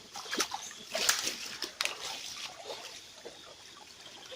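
Water splashing and sloshing in a shallow river, with a few short sharp splashes about half a second, one second and nearly two seconds in.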